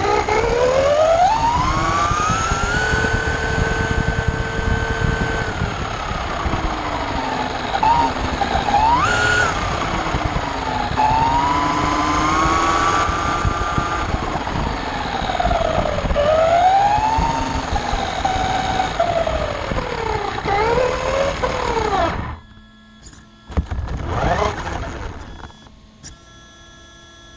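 RC buggy's electric motor whining, its pitch rising and falling with the throttle over a rough rumble from the tyres and chassis. The whine cuts off suddenly about 22 seconds in, leaving a faint steady hum with one short burst of noise a couple of seconds later.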